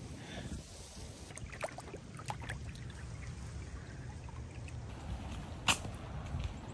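Waterproof boots stepping through shallow creek water and wet mud, with a few short splashes and one sharper knock near the end, over a low steady outdoor rumble.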